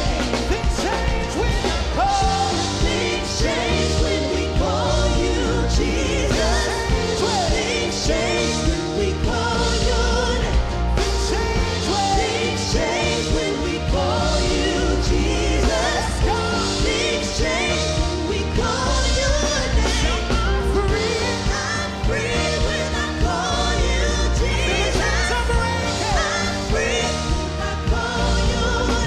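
Worship song: singing over a full band with a steady drum beat and heavy bass.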